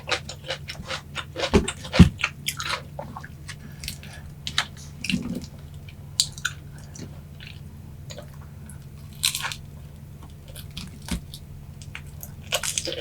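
Close-up chewing of boneless yangnyeom fried chicken: scattered crisp crunches and wet mouth clicks, with two sharp low thumps about two seconds in.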